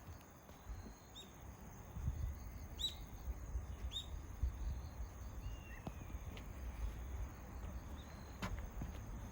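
A few short, high, falling bird chirps, with one longer falling call midway, over a low steady rumble that grows louder about two seconds in.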